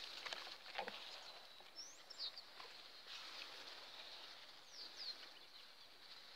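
Quiet rural outdoor ambience: a steady high hiss, with a few short bird chirps about two seconds and five seconds in and faint rustling of vegetation.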